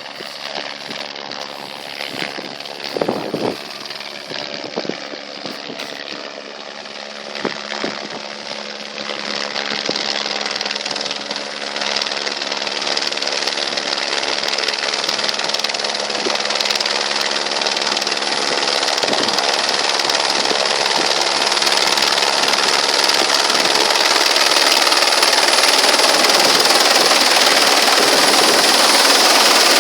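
Helicopter running, its engine and rotor noise growing steadily louder over the half-minute, with a steady hum under a rising rush of noise.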